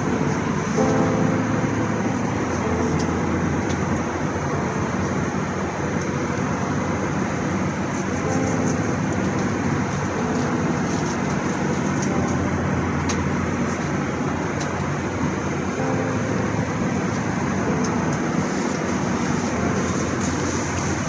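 Steady roar of an airliner's cabin in flight: jet engine and airflow noise heard from inside the plane.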